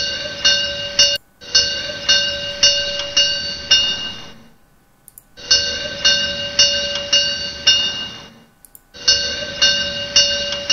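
Recorded bell sound sample for a model-railway sound module, played back through the computer: a bell struck about twice a second with a clear ringing tone, quieter at first, then louder with one strong stroke, then fading. It is started over several times; the first playback is cut off after about a second.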